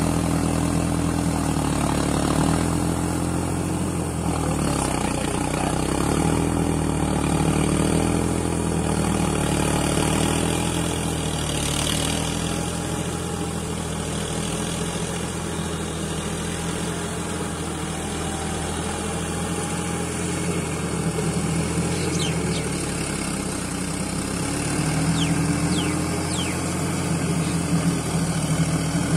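Deutz-Fahr 70 hp tractor's diesel engine running steadily while pulling a heavy rotavator through wet mud. Its note wavers up and down as the load changes.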